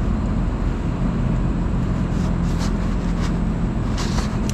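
Steady low machine hum, with a few light clicks and taps of hand work on the compressor's crankcase heater.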